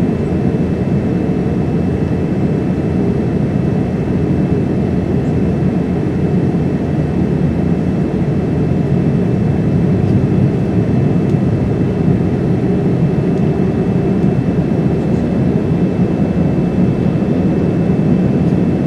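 Steady cabin noise of a Boeing 787-9 on its landing descent, heard from a seat over the wing: Rolls-Royce Trent 1000 engine and airflow noise, even and unchanging, with a faint steady high tone above it.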